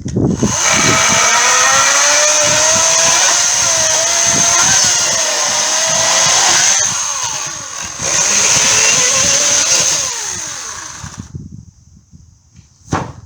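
EGO 56-volt battery chainsaw running and cutting through wood, its motor pitch wavering and dropping as the chain bites, with a brief easing about seven seconds in. It stops about eleven seconds in, and a single sharp knock follows near the end.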